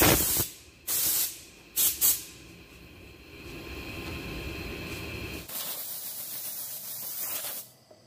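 Hissing jets of pressurized gas from a nozzle: three short blasts in the first two seconds, then a steady hiss of about two seconds near the end. A low background rumble cuts out as the long hiss begins.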